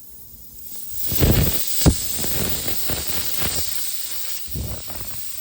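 Air hissing steadily out of a car tire through the puncture as the screw is pulled from the tread, with two loud knocks about a second in.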